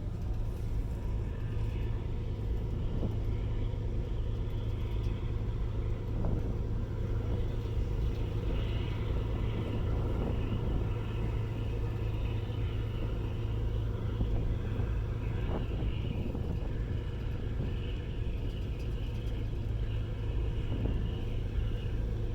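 Car ferry's engines running with a steady low drone, heard on board while under way.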